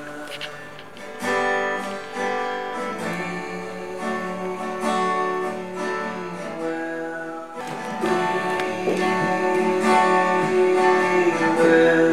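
Background music. It drops out briefly about seven and a half seconds in, then comes back louder.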